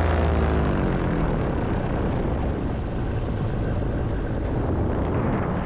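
Powered paraglider (paramotor) engine and propeller. Its pitch falls and it throttles back in the first second or so, leaving a steady rushing noise.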